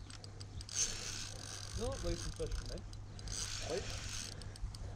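Spinning reel working as a hooked trout is played, its mechanism giving a faint ratcheting whirr. A few short low vocal sounds come about two seconds in and again near the end.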